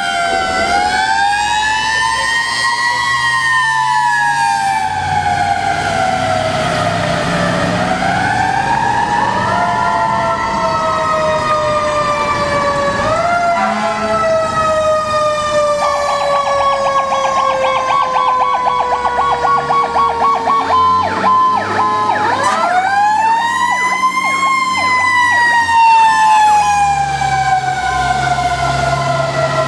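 Fire apparatus sirens wailing, the pitch rising and falling slowly over several seconds, over the low rumble of the trucks' engines. About halfway through, a fast pulsing siren tone sounds for several seconds. Then one siren winds up steeply and slowly coasts back down.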